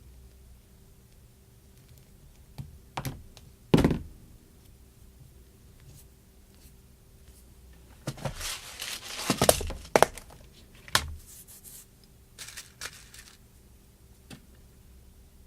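Wire and hand tools being handled while preparing wires for ferrule crimping. A few sharp clicks and a loud knock come about three to four seconds in. A stretch of crinkling, tearing noise runs from about eight to ten and a half seconds, followed by more scattered clicks.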